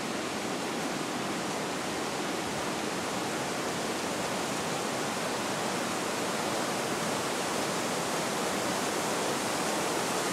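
Steady rushing of a mountain river, growing slightly louder toward the end.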